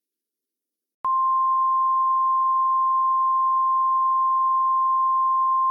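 Emergency alert attention tone: a single steady, pure beeping tone of the NOAA Weather Radio 1050 Hz kind, starting abruptly about a second in. It is the warning signal that announces an emergency broadcast message.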